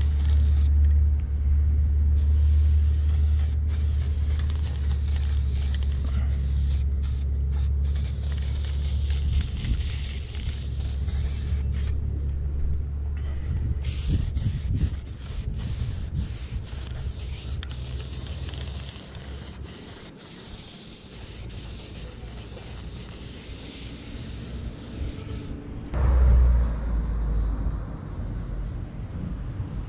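Aerosol spray-paint cans hissing in long sprays, with short breaks about a second in and around twelve seconds in. A low rumble runs under it for the first third and returns near the end.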